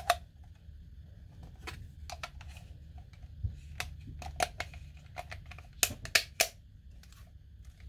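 Sharp plastic clicks and taps of batteries being pressed into a toy RC remote control's battery compartment and its plastic cover being fitted back on, with three louder clicks about six seconds in.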